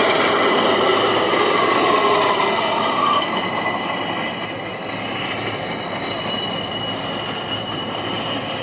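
New York City subway D train running on the tracks, with a steady rail noise and faint wheel squeal; it gets a little quieter about three seconds in.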